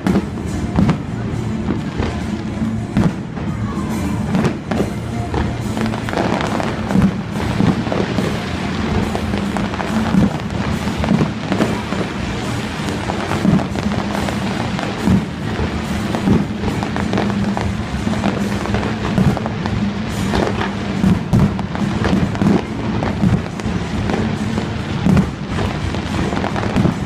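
Fireworks bursting in an irregular string of bangs and pops, a few every second, with music playing underneath.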